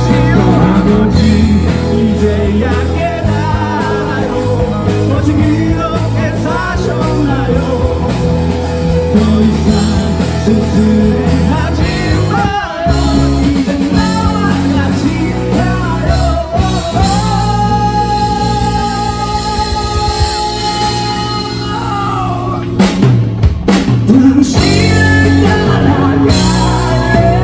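Live amplified rock band: a male singer on a handheld microphone, backed by electric guitars, keyboard and drum kit. He holds one long note a little past halfway, and the band plays a few sharp accented hits near the end.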